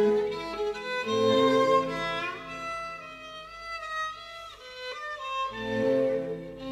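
Background music: a slow melody of held notes over a lower accompaniment. The accompaniment drops out for a few seconds mid-way, leaving a single held note that slides up and later down.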